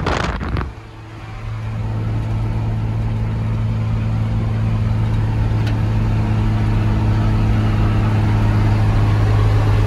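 Mercedes-Benz 1113 truck's six-cylinder diesel engine heard from inside the cab at road speed, a steady low drone that grows gradually louder. A brief loud rush of air noise in the first second.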